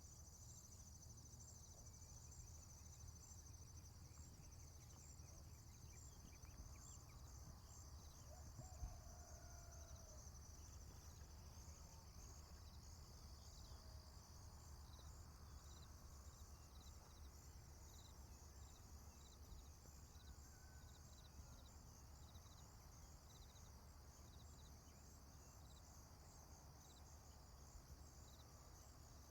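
Faint rural ambience: a steady, high chorus of insects chirping in rapid even pulses, over a low background hum, with a few short faint calls in between.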